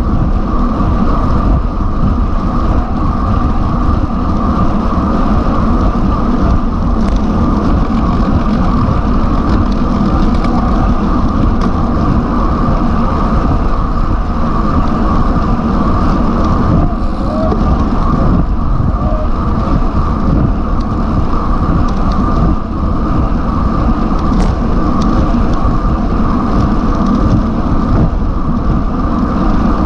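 Wind buffeting the microphone of a bike-mounted camera moving at road-cycling speed, with tyre and road noise underneath: a loud, steady rush.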